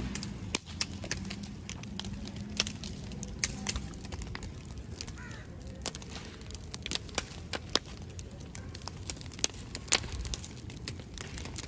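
Open wood fire crackling, with irregular sharp snaps and pops over a low rumble of burning.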